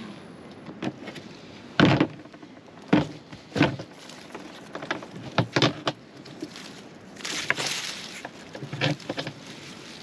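A series of irregular knocks and clunks, a few seconds apart, with a short scraping rustle about seven seconds in.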